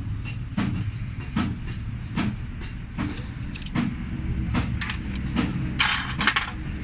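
A short burst of metal clinking and jangling about six seconds in, like spanners knocking against a tractor's diesel injection pump. Under it runs a steady low machine hum with a sharp tick a little more than once a second.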